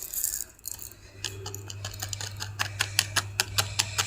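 Quick, irregular clicks and taps of a utensil against a container as the slime ingredients are mixed, coming several a second from about a second in, over a steady low hum.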